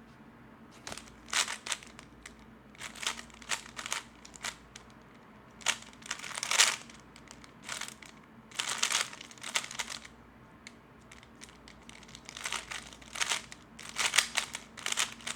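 A plastic 3x3 Rubik's Cube being turned quickly by hand, its layers clacking and rattling in short rapid flurries with brief pauses between them.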